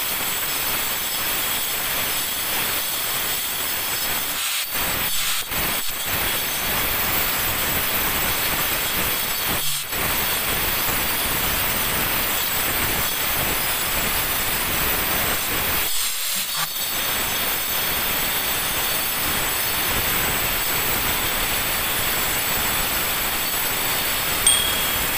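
Handheld electric angle grinder grinding the edge of a granite countertop slab, rounding it over. It gives a steady, high grinding whine with a few brief dips as the disc comes off the stone.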